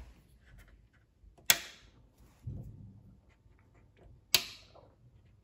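Two sharp clicks from the side buttons of an IKEA Obegränsad record player being pressed, nearly three seconds apart, with a brief low rumble between them.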